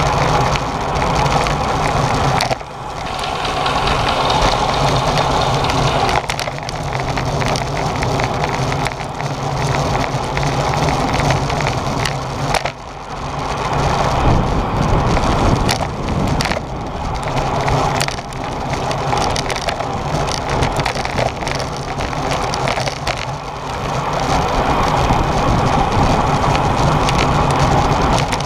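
Wind rushing over a bicycle-mounted action camera's microphone, with road rumble and crackling rattles from riding at speed in a road-race bunch. The noise drops briefly a few times.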